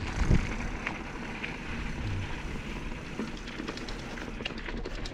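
Wide tyres of an electric bike rolling over a gravel-strewn dirt track: a steady rumbling noise with scattered small clicks of grit and stones.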